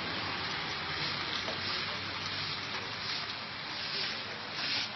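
Steady hiss of falling rain, an even wash of noise with no distinct drops or knocks.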